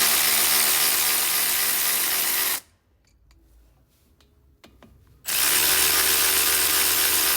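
A power tool run twice on a 14 mm socket, spinning out the two brake caliper bolts. Each run is a steady, loud whir of about three seconds that cuts off abruptly, with a short quiet pause between them.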